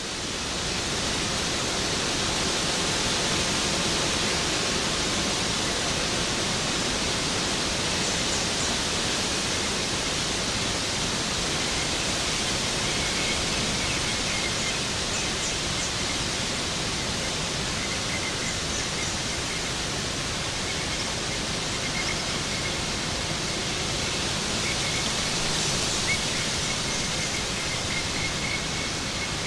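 Waterfall: a steady, dense rush of falling water. A faint thin high tone joins about halfway through.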